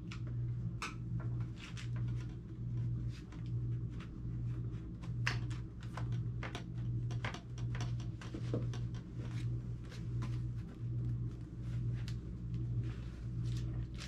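Scattered small clicks and taps from a screwdriver and the laptop's plastic casing as the laptop is worked on and handled, over a steady low hum that swells a little faster than once a second.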